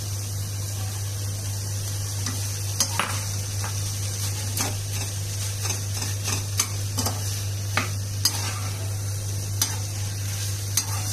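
A perforated steel slotted spoon stirs mawa and crumbled paneer in a non-stick kadhai, scraping and clicking against the pan at irregular moments as the filling is roasted.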